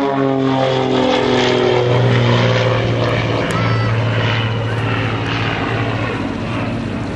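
Propeller-driven aerobatic display aircraft flying past. The engine and propeller note falls in pitch during the first couple of seconds as they pass, then settles into a steady drone.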